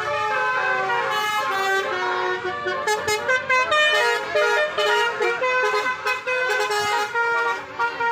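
Indonesian 'telolet' bus horn: a multi-tone musical horn playing a quick tune, its several tones stepping from note to note.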